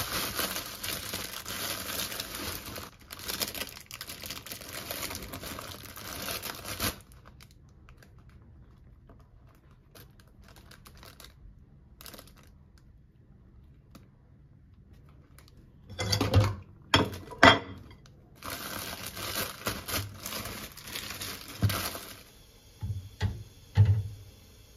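Plastic bread bag crinkling and rustling as it is opened and slices are pulled out, then a quieter stretch. Later come a few sharp knocks and another spell of rustling.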